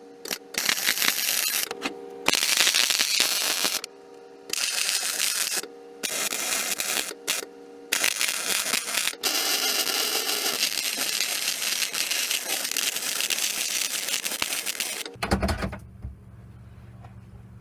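Electric welding on steel plate: a dense crackling in a run of bursts, each lasting from half a second to several seconds, with short pauses between them in which a steady electrical hum is left. About fifteen seconds in the crackle stops and only a low hum remains.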